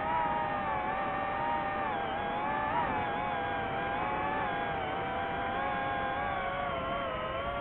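FPV quadcopter's brushless motors and propellers whining steadily, the pitch wavering up and down as the throttle changes.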